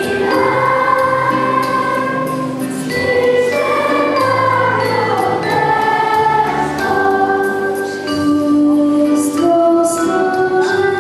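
A choir of primary-school children singing a Polish Christmas carol, with long held notes and some sliding phrases.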